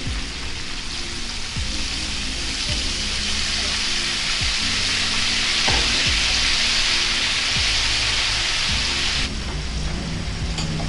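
Milkfish frying in hot oil in a wok, sizzling hard after leftover marinade liquid has been poured over it. The sizzle swells through the middle and drops off suddenly near the end.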